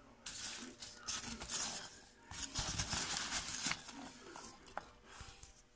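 A hand rummaging through polystyrene packing peanuts in a cardboard box: a rustling, crinkling scrape, loudest for the first three and a half seconds, then fainter.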